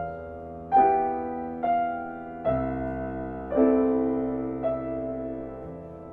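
Slow, gentle piano background music, notes and chords struck about once a second and left to ring out.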